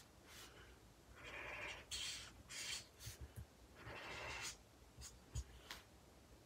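Felt-tip nib of a Promarker alcohol marker rubbing across paper in a series of short colouring strokes, several rasping passes with short pauses between them.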